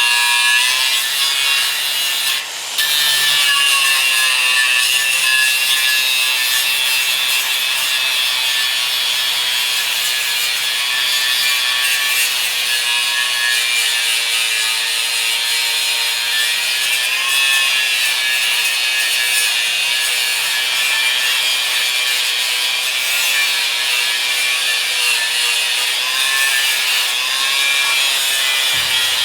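A power tool running steadily under load: a high whine whose pitch wavers slowly over a hiss, dipping briefly about two and a half seconds in.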